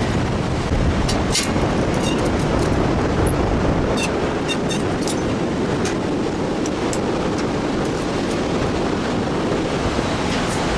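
Steady rushing of a fast river in the gorge below, with scattered light clicks and clinks.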